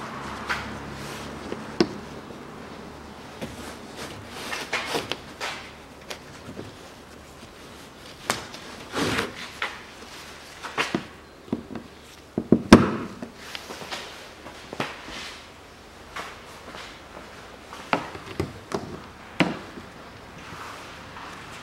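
Irregular clicks, knocks and rustles of hands and a hand tool working on a plastic engine splash shield as it is fastened with clips and bolts, with the loudest knock a little past halfway.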